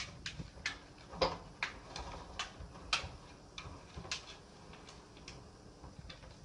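Plastic pet-door flap clicking and clacking against its frame over and over, at an uneven pace, as an animal pushes through it.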